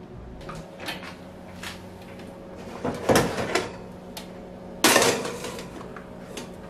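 Metal baking trays clattering and scraping against the oven's wire racks as they are handled and pulled out, with one sharp clank near five seconds in the loudest, over a steady low hum.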